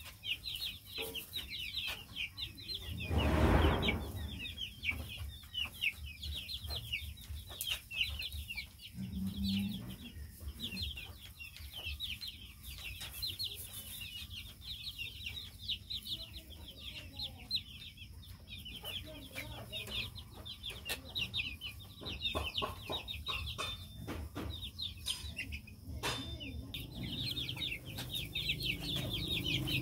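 A flock of young chickens peeping, many short, high, falling chirps overlapping without a break. A brief loud rustling noise about three seconds in is the loudest sound.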